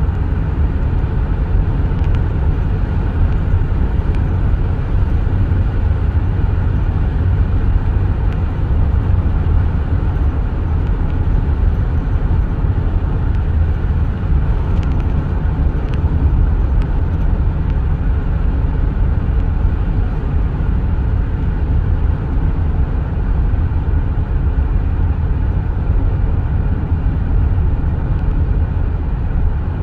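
Steady low rumble of a car driving, tyre and engine noise heard from inside the cabin.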